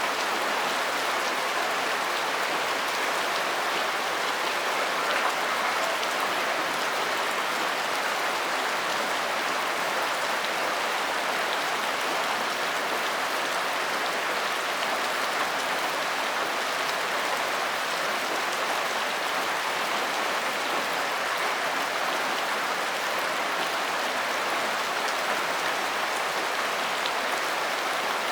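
Steady rain falling: an even, unbroken hiss of many drops that holds the same level throughout.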